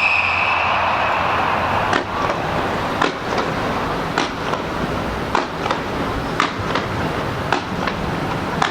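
Fireworks display: the tail of a falling whistle at the start, then a run of sharp pops and bangs about once a second over a steady background roar.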